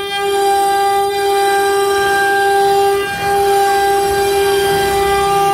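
CNC router spindle running with a steady high-pitched whine while its bit carves a relief pattern into a wooden board. The whine dips briefly twice: just after the start and about three seconds in.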